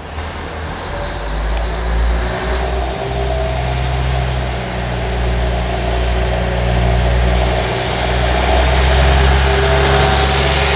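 KiHa 110 series diesel railcar passing slowly at close range, its underfloor diesel engine running with a steady low drone and hum that grows gradually louder as the cars go by.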